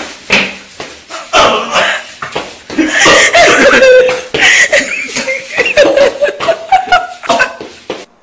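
Loud, breathless laughter mixed with sharp coughing and sputtering from someone bent over a sink, choking on a mouthful that can't be swallowed. It all cuts off suddenly near the end.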